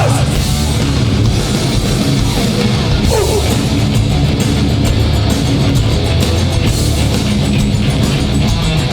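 Hardcore punk band playing live and loud: distorted electric guitars, bass and drums driving on without a break.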